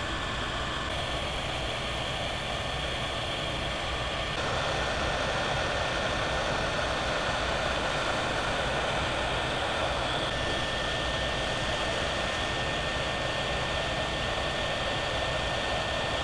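Electric heat gun running steadily, its fan blowing a rush of hot air with a thin steady whine over it, getting a little louder about four seconds in. It is heating adhesive-lined heat-shrink butt connectors to shrink them onto crimped wires.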